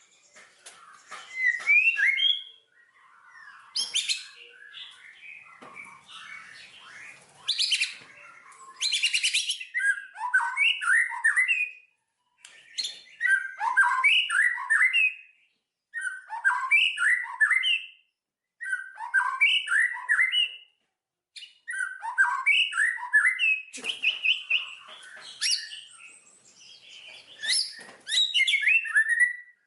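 A songbird singing short phrases of quick, gliding chirps, one phrase about every two seconds with brief pauses between. A few harsher, buzzier notes come in the first third.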